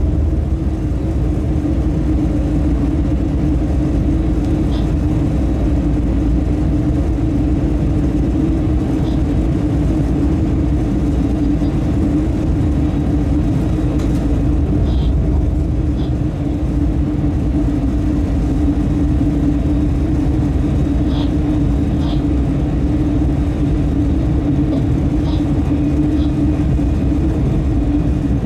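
Locomotive running light at line speed, heard from inside its cab: a steady hum over the low rumble of wheels on rail, with a few faint short high ticks.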